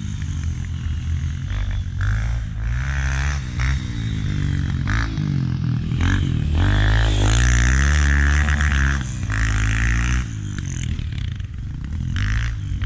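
Dirt bike engine revving up and easing off again and again as it is ridden around the track, loudest in the middle.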